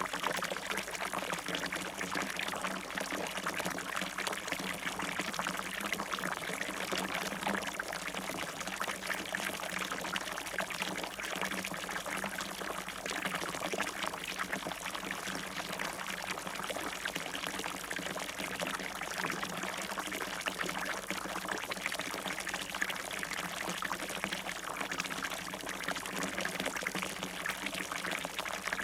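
Fountain water splashing and pouring steadily into its basin.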